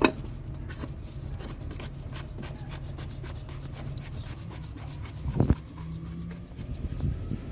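Hand work on the oil filter housing, plastic parts being handled and rubbed against each other. It opens with a sharp click, runs on as rapid light scraping ticks, and has one knock about five and a half seconds in.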